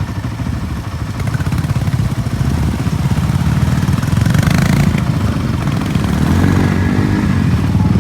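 Motorcycle engine running, a steady low throb that grows a little louder over the first few seconds.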